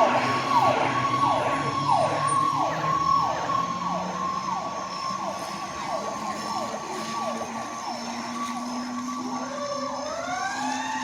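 Fire engine sirens sounding: a steady high tone under a falling sweep that repeats about one and a half times a second and gradually quickens. Near the end a second siren note starts rising in pitch, with the truck's engine running underneath.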